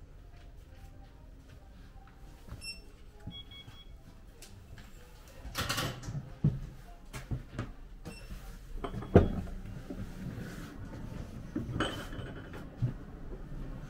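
Scattered knocks and clunks in an echoing room, irregular rather than in a walking rhythm; the loudest comes about nine seconds in.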